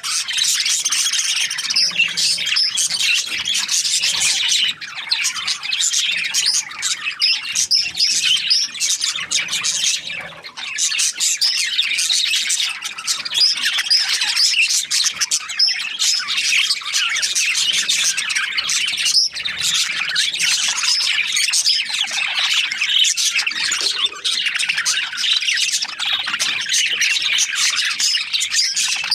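A flock of budgerigars chirping and chattering together, many short overlapping calls and squawks at once with no break, dipping only briefly twice.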